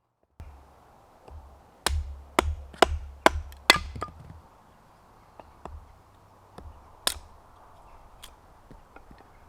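Axe striking wood: five sharp chops about half a second apart, then a single chop a few seconds later, with a few lighter taps between.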